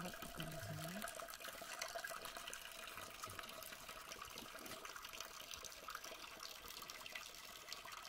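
Spring water running steadily from a fountain spout, a faint, even splashing.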